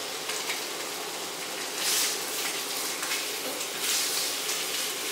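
Food frying in a pan on high heat: a steady sizzle that swells briefly about two seconds in and again about four seconds in.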